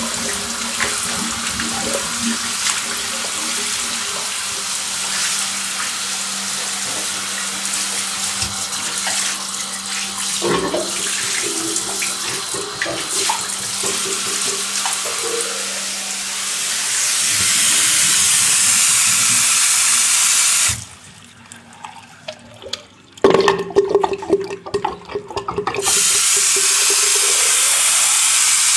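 Tap water running into a sink, growing louder past the middle. It cuts off abruptly about three-quarters of the way through, a few knocks and a short hum follow, and then the water runs again near the end.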